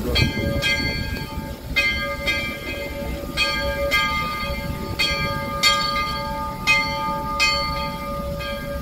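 Locomotive bell ringing in a steady swing, struck in pairs about every second and a half, each strike left ringing with a clear metallic tone. A steady low rumble runs underneath.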